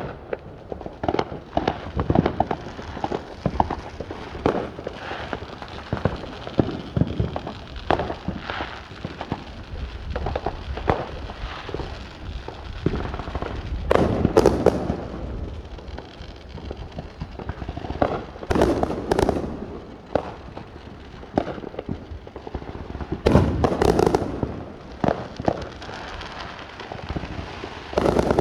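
Fireworks going off one after another: a steady run of sharp bangs and crackling pops, with louder clusters of booms about halfway through, around two-thirds in, and again near the end.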